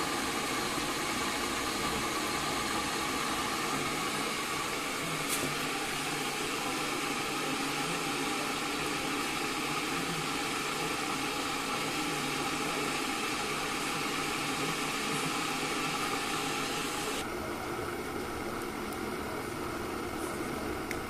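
Electric kettle boiling water with a sausage inside, a steady rushing hiss. About three-quarters of the way through, the higher hiss cuts out abruptly and the sound turns a little quieter.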